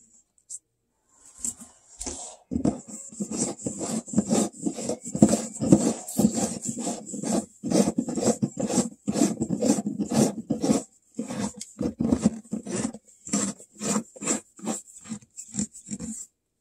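Light bulb being twisted into its socket in a foil-lined cardboard light box: a long run of scraping, rubbing strokes, about two a second towards the end, with a faint steady high hiss alongside.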